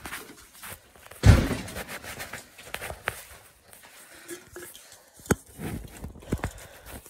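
Muffled handling noise from a phone with its lens covered: scattered knocks, rustling and footsteps, with a heavier thump just over a second in and a few sharp clicks later.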